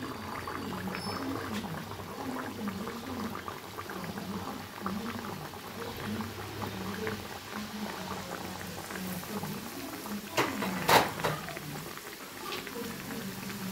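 Stuffed litti dough ball deep-frying in hot oil, the oil sizzling and bubbling steadily around it. About ten seconds in there is a brief, louder clatter.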